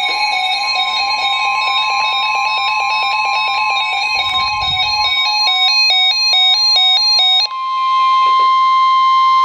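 Weather radio sounding a severe-weather warning alert: a steady, loud high tone with a rapid pattern of stepping electronic beeps over it. The beeps stop about seven and a half seconds in, and the lone tone then cuts off sharply just before the warning message begins.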